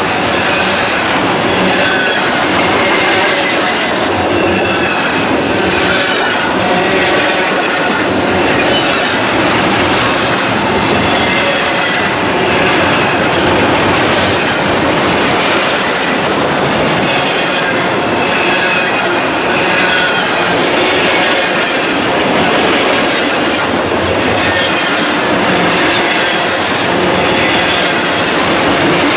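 Double-stack intermodal freight train's well cars rolling past close by: a steady rumble and rattle of steel wheels on rail, swelling slightly as each truck passes, with faint wavering wheel squeal.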